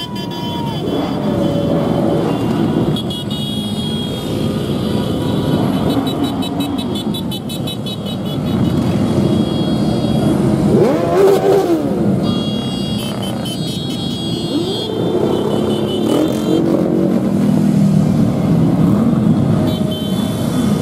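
A procession of many motorcycles riding slowly past, their engines running together in a steady din, with one rev rising and falling about eleven seconds in.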